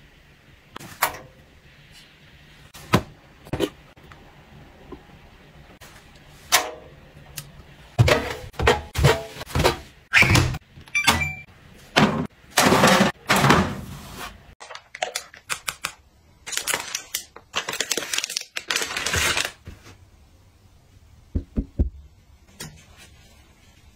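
Close-up handling sounds of plastic bottles and household packaging: scattered clicks and knocks of bottles and caps, then a busy stretch in the middle of taps, clatter and rustling as bottles are set on a shelf and packets are handled.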